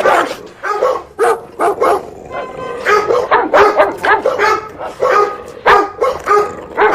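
A dog barking loudly and repeatedly, short sharp barks coming two to three a second, with a brief lull about two seconds in.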